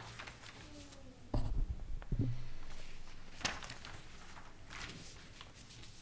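Quiet room with paper rustling and scattered small knocks. Two dull thumps come about a second and a half and two seconds in.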